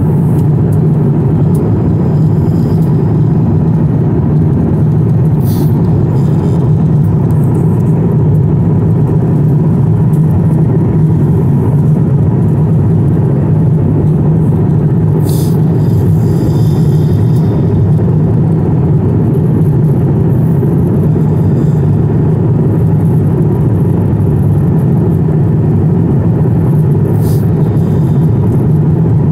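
Steady, loud low roar of an Airbus A350 airliner in cruise, heard inside the passenger cabin: engine and airflow noise.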